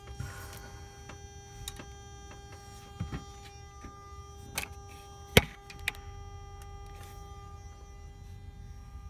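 Mazda Miata NB engine bay with a steady whine made of several fixed tones over a low running rumble: the strange noise the owner is recording. A few sharp knocks cut in, the loudest about halfway through.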